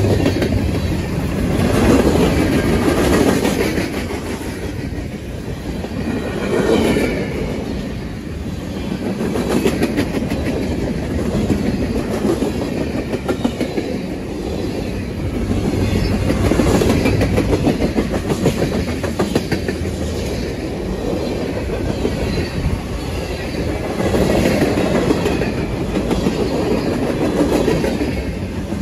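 Freight cars rolling past close by: a steady rumble and clatter of steel wheels on rail that swells and eases every few seconds.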